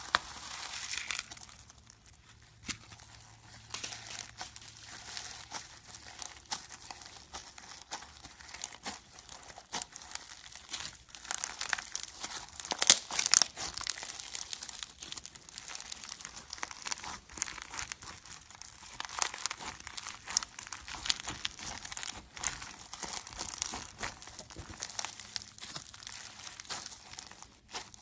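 Foam beads crackling and popping in dense, irregular clicks as fingers press into loose foam beads and squeeze and stretch slime packed with them (floam). Loudest about halfway through.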